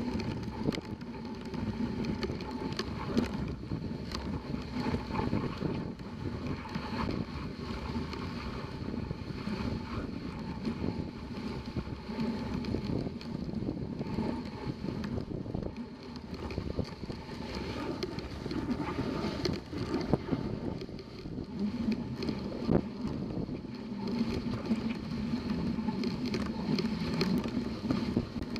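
Dog sled running over a packed snow trail: a steady scraping hiss of the runners on snow, broken by many small knocks and rattles of the sled.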